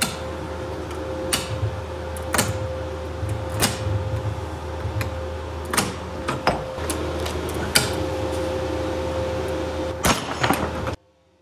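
Steel-cable hand winch cranked under rising load, giving sharp metallic clicks every second or so. About ten seconds in comes a loud double crack as a 100%-infill PETG 3D-printed carabiner snaps at about 208 lb. A steady low hum runs underneath, and the sound cuts off suddenly near the end.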